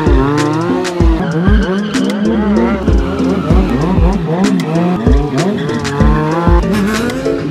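Sport motorcycle doing a burnout: the engine revs up and down while the rear tyre squeals against the road. Background music with a steady beat plays underneath.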